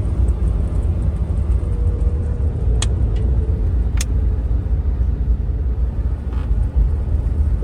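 Strong wind buffeting the microphone: a loud, fluctuating low rumble, with two short sharp clicks about three and four seconds in.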